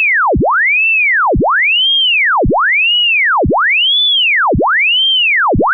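A pure electronic tone sweeping up from a deep low hum to a high whistle and straight back down, about once a second, over and over without a break. It is loud and even throughout.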